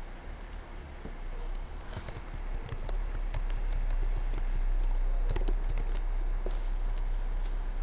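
Keystrokes on a computer keyboard: a run of irregular clicks as a short word is typed, over a steady low hum.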